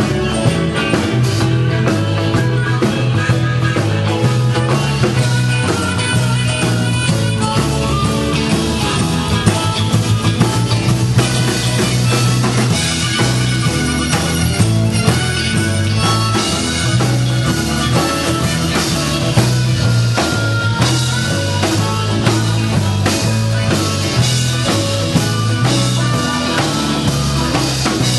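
Live band playing rock music: drum kit, keyboard and guitar.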